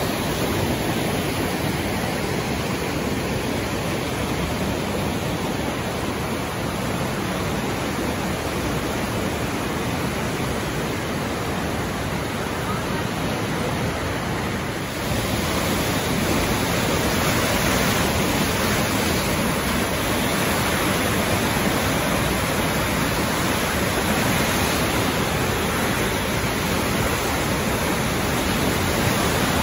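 Floodwater of a swollen mountain creek rushing through rapids: a steady, loud rush of churning water that grows louder and brighter about halfway through.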